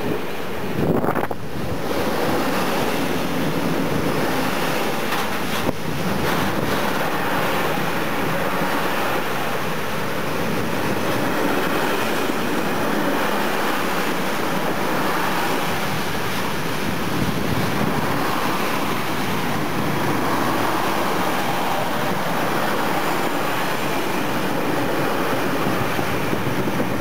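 Freight train of stake flat wagons loaded with steel beams rolling past at close range: a steady rumble and roar of wheels on rail, with a few brief knocks about a second in and again near six seconds.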